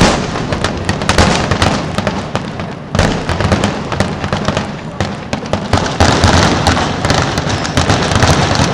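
Fireworks going off in rapid succession: a dense run of bangs and crackling, with a sharp loud burst about three seconds in, and the crackle thickening over the last few seconds.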